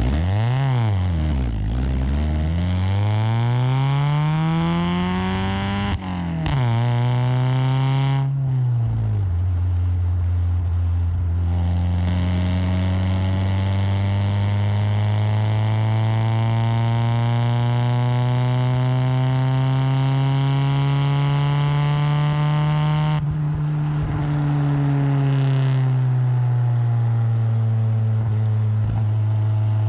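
Sixth-generation Honda Accord engine through an aftermarket cat-back exhaust, revving. A few quick blips rise and fall in the first several seconds, then a long pull with the pitch climbing steadily, which eases off and falls back a few seconds before the end.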